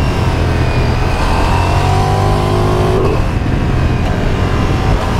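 Ducati Diavel V4's 1158 cc V4 engine pulling under load while riding in third gear, heard from the bike with wind rush on the microphone. The engine note rises for about two seconds, then drops away suddenly about three seconds in.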